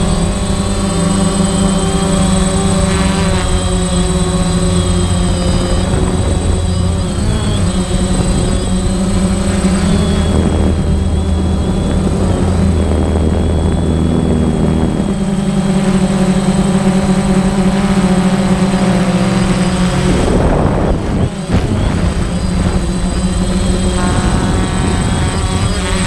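Parrot Bebop quadcopter's electric motors and propellers buzzing in flight, a steady multi-tone hum. Its pitch shifts in steps as the drone manoeuvres, with a brief dip and sweep about three quarters of the way through.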